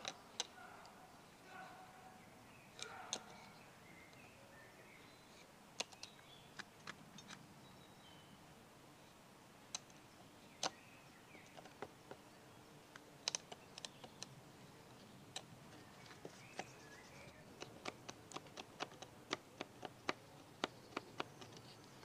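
Fixed-blade knife cutting a rectangular recess into a small piece of wood: quiet, scattered sharp clicks as the blade tip bites in and splits out chips, coming quicker near the end.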